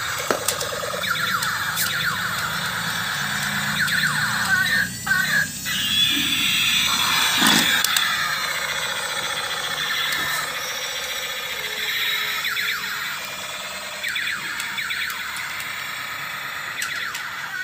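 Battery-operated convertible tank-and-jet toy playing its electronic military sound effects through a small speaker: siren-like tones sweeping up and down in pitch, mixed with a few sharp clicks.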